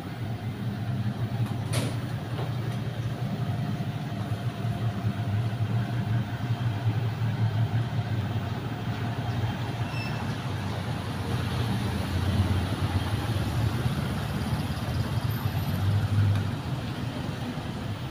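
Street traffic: a steady low engine rumble from passing vehicles, swelling a little now and then, with one sharp click about two seconds in.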